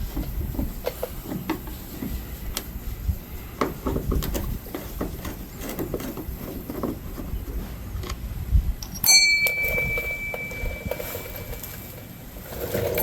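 Small handling knocks and rustles of work on the truck, then about nine seconds in a sharp metallic clink of a metal tool or part that rings on in a clear tone for about three seconds.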